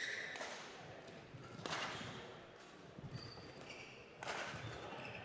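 Badminton racket strikes on a shuttlecock during a rally: three or four sharp hits a second or two apart, echoing in a large hall, with short high squeaks between them.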